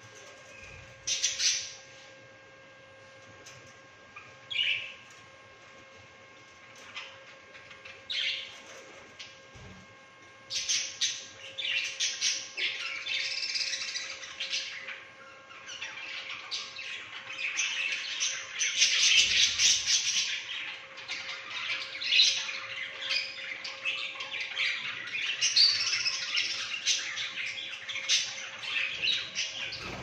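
A flock of budgerigars calling. A few single squawks come in the first ten seconds, then from about ten seconds in the birds chirp and chatter almost continuously.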